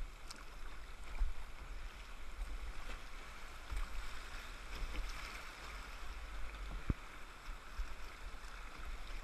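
Shallow river water rushing and splashing around a canoe as it runs through a rocky riffle, over a steady low rumble. A single sharp knock comes about seven seconds in.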